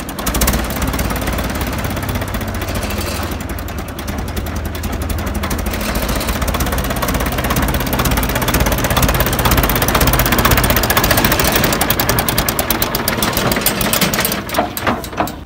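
Diesel engine of an old Belarus tractor running steadily with its hood open, a rough, rapid clatter that grows louder through the middle.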